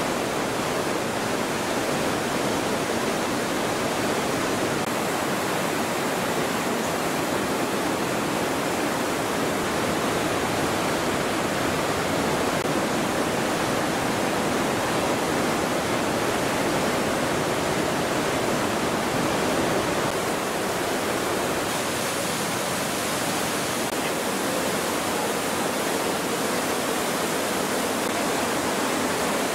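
White-water mountain river rushing over boulders through a narrow rock gorge: a steady, even rush of water that never lets up.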